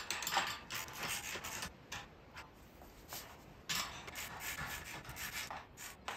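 Hand socket ratchet clicking in quick back-and-forth strokes as the caster wheels' mounting nuts are snugged down on the dolly's steel frame. It comes in two spells, one at the start and another from just under four seconds in, with a lull between.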